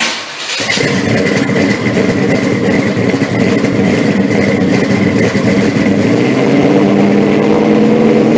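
Loud car engine running steadily, with a thin high whine above it. It starts abruptly and runs evenly.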